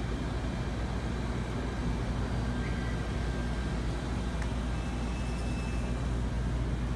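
Steady low rumble of ventilation fans, with a few faint thin high tones near the middle.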